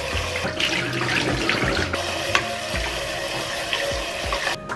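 Kitchen faucet spraying cold water into a stainless steel pot as blanched spinach is rinsed and stirred in it, a steady splashing rush with a few light knocks of the utensil against the pot.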